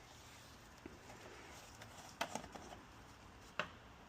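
Quiet background with a few short, faint clicks and light knocks, two close together a little past two seconds in and one more near three and a half seconds.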